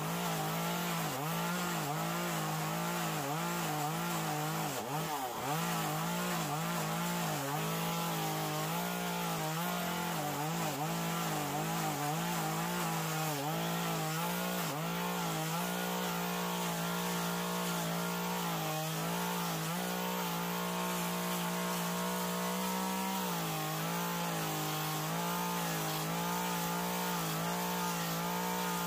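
Gas two-stroke chainsaw running at high revs while carving into western red cedar, its pitch dipping briefly again and again as the chain loads up in the cut.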